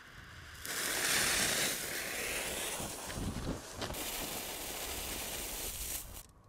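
Steady hiss of a lit Viper 12 firecracker fuse burning down inside a metal ammo box, smoke pouring out; it stops abruptly near the end.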